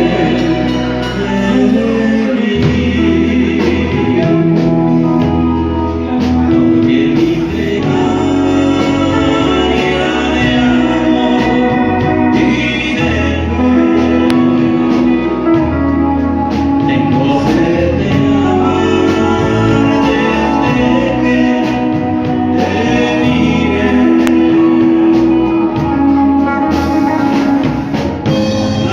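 Song with singing over a full instrumental backing and a steady bass line.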